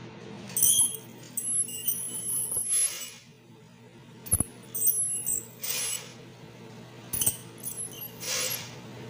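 Steel hand scaler scraping hardened tartar off the lower front teeth: repeated short, high, scratchy strokes and clicks of metal on tooth. Underneath are a steady low hum and a few short hissing rushes.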